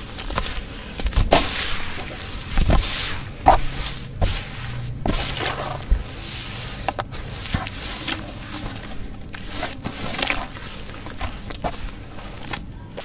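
Hands squeezing and kneading wet sand paste in a basin of muddy water: irregular wet squelches and sloshes, busier in the first half, then hands stirring and swishing through the muddy water.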